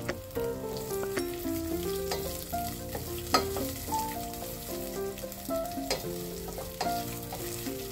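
Sliced red onions and garlic sizzling in oil in a stainless steel saucepan, stirred with a wooden spoon that now and then clicks against the pan. Soft background music with held melodic notes plays throughout.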